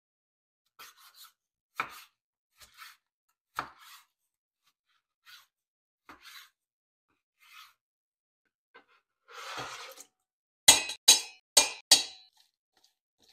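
Chef's knife cutting raw chicken breast on a bamboo cutting board: scattered soft knocks of the blade on the wood. Near the end come a short rustle and then four loud, sharp metallic clinks in a stainless steel mixing bowl.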